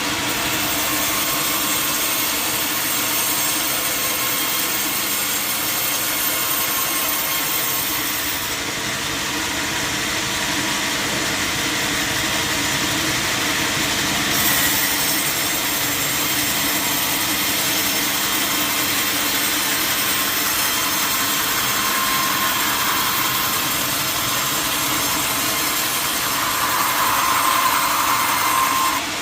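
Large sawmill saw cutting lengthwise through a big log, with the machinery running steadily; the cut gets a little louder and higher near the end.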